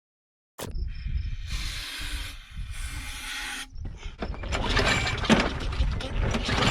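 Old Craftsman push mower's recoil starter pulled twice, the cord and engine cranking with a rasping whir, after the carburetor has been cleaned and primed. This is followed by a run of rattling clicks and clatter, with a steady low rumble underneath.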